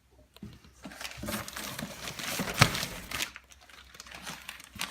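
Packing material crinkling and rustling as hands rummage through a box, busiest in the middle, with one sharp click about two and a half seconds in.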